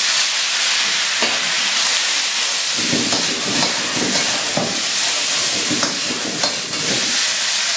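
Tomato chunks sizzling loudly in hot oil in a wok, stir-fried with a metal ladle that knocks against the pan now and then. From about three seconds in, a deeper rushing sound joins the sizzle as the oil flares up into flames in the wok.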